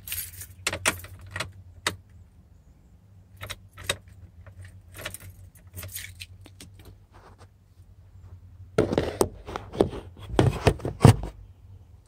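A bunch of keys jangling, in short scattered rattles, with a denser run of louder clatter and knocks about nine to eleven seconds in.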